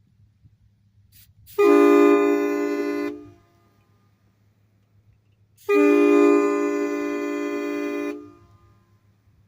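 HornBlasters Flatlaw train horn, its bell reversed, blown on compressed air at about 100 psi: two loud blasts. The first lasts about a second and a half and the second about two and a half seconds. Each starts abruptly at full strength, eases off slightly, then cuts off.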